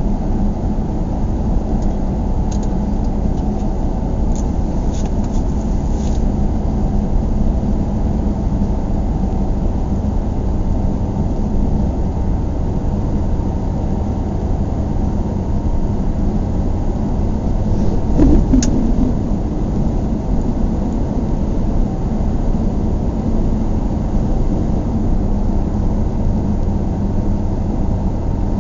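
Steady low rumble of a vehicle on the move, road and engine noise, with a brief knock about 18 seconds in.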